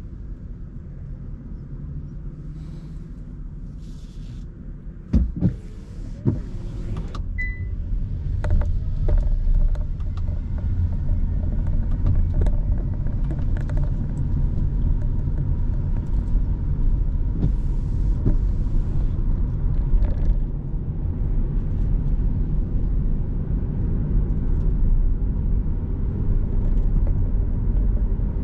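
Car driving on wet roads: a steady low road and engine rumble that gets louder about a third of the way in as the car picks up speed, with a couple of sharp knocks near the start and the hiss of spray swelling now and then.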